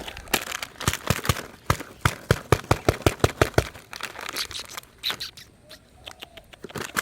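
Kinder egg foil wrapper and plastic toy capsule being handled and opened by hand: a fast run of sharp clicks and crinkles that starts about a second in and thins out past the middle.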